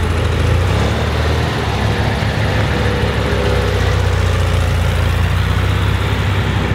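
Air-cooled flat-four engine of a 1965 VW Beetle Baja Bug idling steadily, its engine open at the rear with no decklid.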